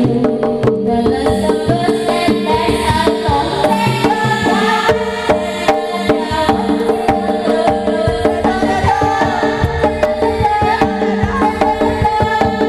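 Live Javanese jaranan gamelan music: hand drums beating a fast, steady rhythm over steady ringing metal gong tones, with a wavering melody line above, loud and without a break.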